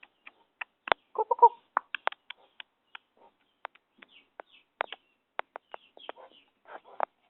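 Puppies squeaking and yipping in short, irregular bursts, with a brief cluster of calls about a second and a quarter in.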